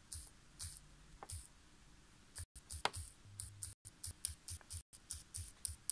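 Faint, light clicking, about three small clicks a second.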